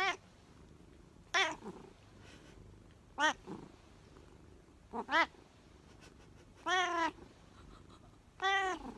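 House cat meowing repeatedly: six short, arching meows about one and a half to two seconds apart, the fourth one doubled.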